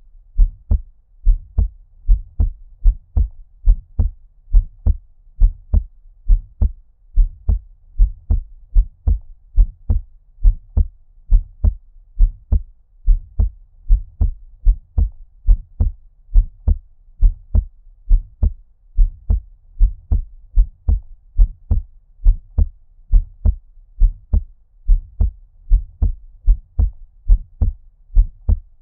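Human heartbeat at a normal resting rate: steady lub-dub pairs of low, muffled thumps, a little over one pair a second, sounding as if heard underwater.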